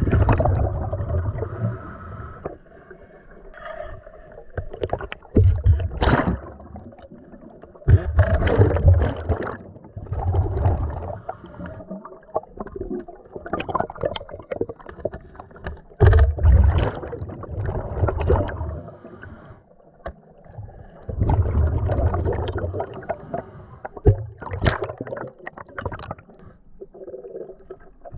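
Air bubbling and gurgling underwater in repeated rumbling bursts of one to two seconds, with quieter gaps and a few sharp knocks between them.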